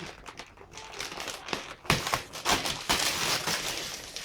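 Gift wrapping paper being torn and crumpled as a present is unwrapped: a run of crackles and rips that grows denser and louder about two seconds in.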